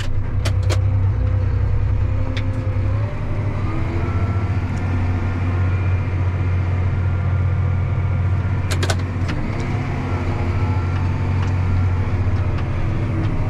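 Farm tractor's diesel engine running steadily with a low drone, heard from inside the cab, with a few sharp clicks or knocks near the start and again about nine seconds in.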